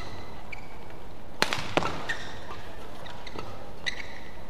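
Badminton rally: several sharp racket hits on the shuttlecock, the two loudest close together a little past a second in, with short squeaks of shoes on the court mat, over steady arena background noise.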